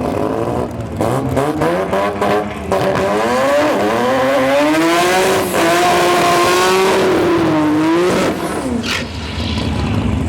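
Turbocharged Mazda RX-7 drag car's rotary engine: several sharp pops, then it revs up hard down the strip, its pitch climbing in steps through the gear shifts. About eight seconds in the pitch drops away, with another sharp crack near the end.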